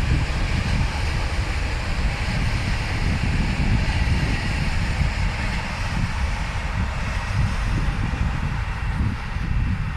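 Long, heavy freight train rolling past on the rails: a steady rumble with a hiss of wheels on track that eases a little near the end. Wind buffets the microphone.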